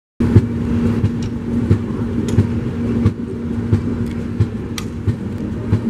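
A Rajdhani Express passenger coach running along the track: a loud, steady low rumble with a constant hum, and irregular wheel knocks over rail joints.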